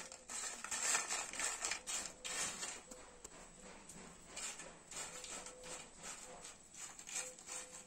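Crisp fried potato chips crackling and rustling on a paper plate as a hand tosses them, an irregular run of small dry crackles; the sound of chips fried fully crisp.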